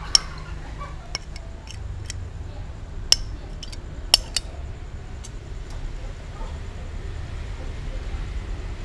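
Scattered sharp clicks and taps, the loudest near the start and about three and four seconds in, as cooked rice is dropped and shaken off a hand onto a hard board, over a low steady rumble.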